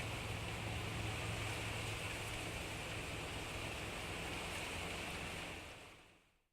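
Wind blowing through trees, a steady rushing that fades out near the end.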